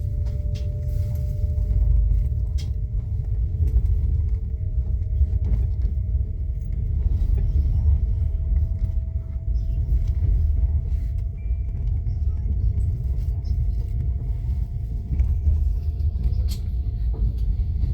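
Steady low rumble of a moving vehicle heard from inside, with a faint whine that slowly rises in pitch over most of the stretch.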